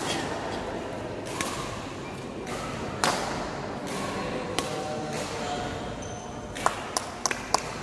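Badminton rackets striking a shuttlecock during a rally: sharp single cracks a second or two apart, the loudest about three seconds in, with a quick run of sharp ticks near the end, over the murmur of voices in a large sports hall.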